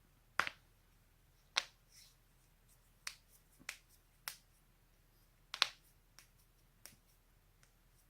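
A person's joints cracking: single sharp pops at irregular intervals of about a second, about six loud ones and a few fainter clicks. The loudest, a little past halfway, is a quick double pop.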